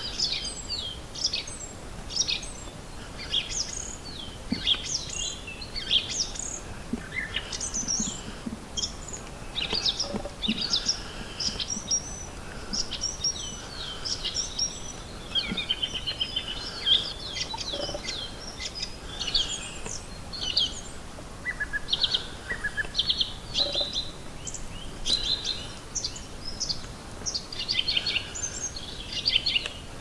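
Marsh warbler singing its fast, varied song: a steady stream of quick chattering notes, trills and whistles, full of phrases copied from other birds.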